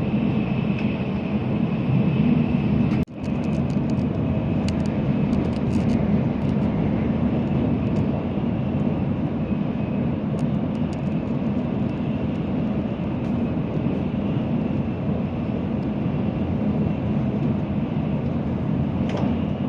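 Cabin running noise of a Shinkansen Nozomi bullet train at speed: a steady rumble with a faint, steady high whine and occasional light ticks. The sound cuts out for an instant about three seconds in.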